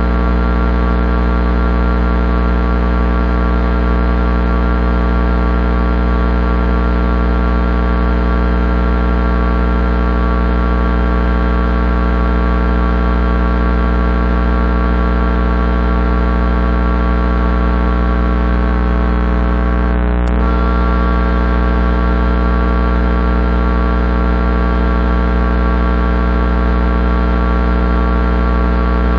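High-voltage electrical transformer hum: a loud, steady low drone with many overtones stacked above it, with one brief blip about two-thirds of the way through.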